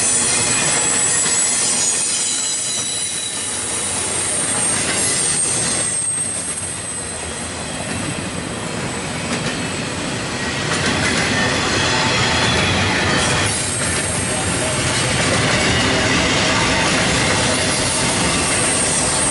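Double-stack intermodal freight train's well cars rolling past, steel wheels rumbling on the rails with a thin, high wheel squeal that fades and returns.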